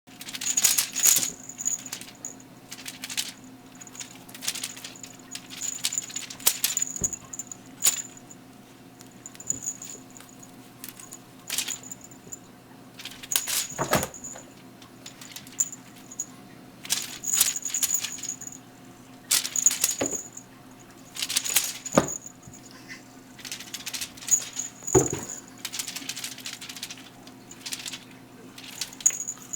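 A crinkly bird-shaped pet toy rustling and jingling in short bursts as pets jump at it and tussle over it, with a few heavier thumps of landings and bumps.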